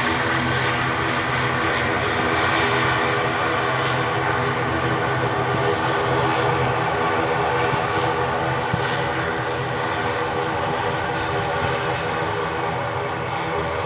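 ATR 72-600's twin turboprop engines and propellers running steadily: an even drone with several steady hum tones underneath, easing slightly near the end.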